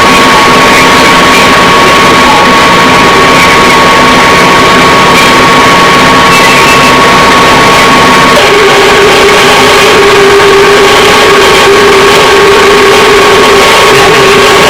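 Funai VCR-DVD combo player making a loud, steady whirring noise with hiss and a high whine. About eight and a half seconds in, the low hum drops away and a lower drone takes over.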